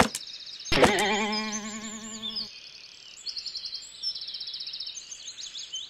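A sharp knock, then a second hit with a wobbling, twanging tone that fades out about two and a half seconds in: a cartoon sound effect. Behind it runs a bed of forest birdsong with repeated high chirps.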